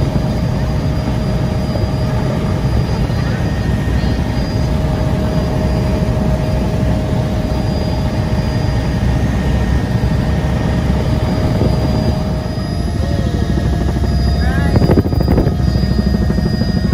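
Helicopter cabin noise: the rotor and engine make a steady, loud, dense drone with a constant whine on top, heard from inside the cabin in flight. There is a brief louder burst about fifteen seconds in.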